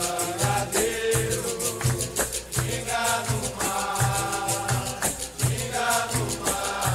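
Capoeira music: voices singing long held notes over a berimbau, a shaker rattle and a tambourine, with a steady low drum beat about twice a second.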